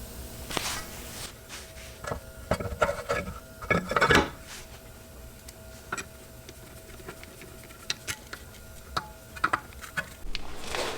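Brake rotor being fitted back onto the rear wheel hub: irregular metallic clinks, knocks and scrapes, loudest about four seconds in.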